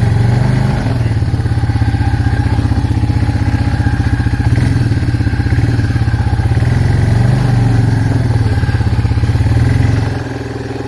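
Arctic Cat 366 ATV's single-cylinder engine running loudly at a steady speed, then easing off about ten seconds in.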